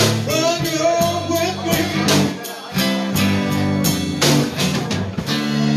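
Live blues band playing: electric guitars over bass and a drum kit, with the drums striking about twice a second.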